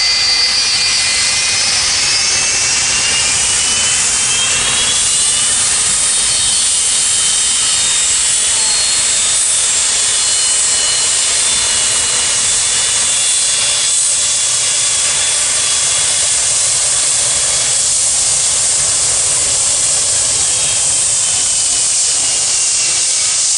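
Boeing 757 twin jet engines running loud and steady at close range, a strong rushing noise with high-pitched whining tones that rise a little a few seconds in.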